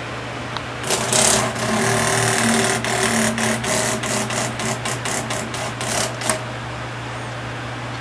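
Giant cicada giving its distress buzz while seized by a scorpion: a loud rasping buzz starts about a second in, breaks into a string of pulses that come further apart, and stops about six seconds in.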